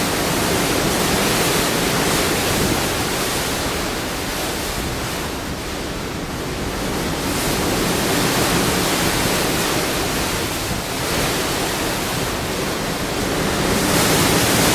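Steady rushing noise of wind and sea, slowly swelling and easing, with no distinct events.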